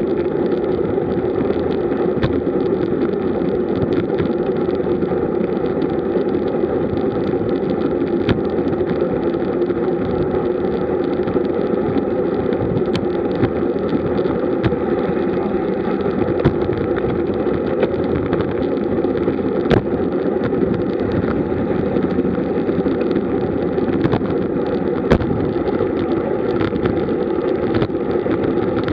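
Steady rush of wind and tyre noise from a road bike riding in a group at about 40 km/h, with a few short sharp clicks now and then.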